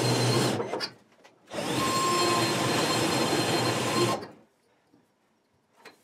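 A power drill driving screws through the fireplace's sheet-metal vent collar into the inner vent tube, in two runs. The first is short and stops about a second in; the second runs about two and a half seconds, then stops.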